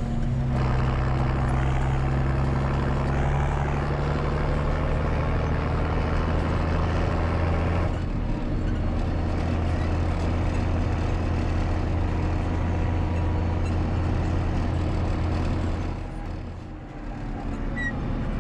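Mercedes-Benz MB Trac 1600's six-cylinder turbo diesel engine running steadily while driving, heard from inside the cab with the roof hatch open. Near the end the engine eases off briefly, then picks up again.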